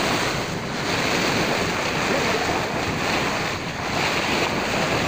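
Steady rushing of wind on the microphone and choppy waves around a ferry boat out on open water.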